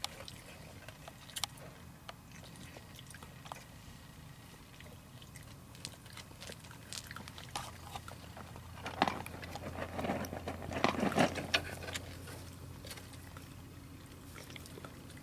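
A raccoon at close range, with scattered small clicks and scuffs, then a louder spell of crunching and scraping about nine to twelve seconds in. A faint low hum runs underneath.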